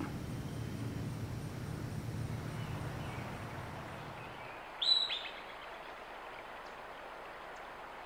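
Groundhog (woodchuck) giving one short, shrill whistle call about five seconds in, falling slightly in pitch with a brief trailing echo. A low steady hum runs beneath it and stops just before the call.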